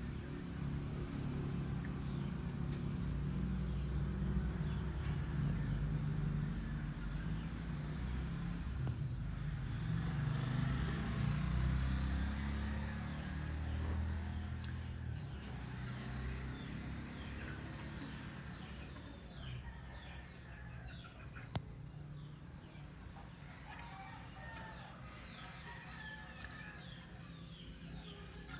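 Backyard dawn chorus: a steady high insect drone with birds calling, many quick descending chirps in the second half. A low rumble runs under the first half and fades away.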